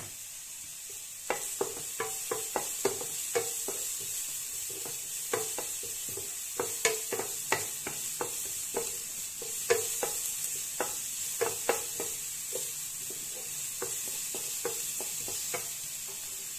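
Slotted wooden spatula stirring garlic and red onion in a nonstick frying pan, with many irregular knocks and scrapes against the pan over the steady sizzle of the oil.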